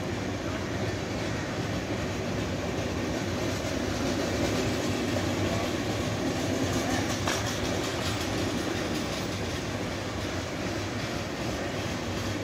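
Coaches of the 22208 AC Superfast Express passing at speed: steady wheel-on-rail noise, swelling slightly in the middle, with a few faint clicks.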